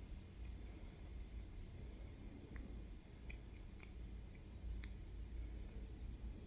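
Faint, scattered light clicks of small metal lock parts, a pin and its cap tapped and pressed with a tool, with one sharper click about five seconds in.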